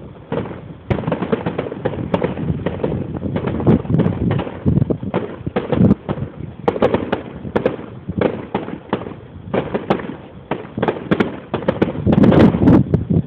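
Fireworks going off: many sharp bangs and crackles in quick, irregular succession, thickening into a denser barrage near the end.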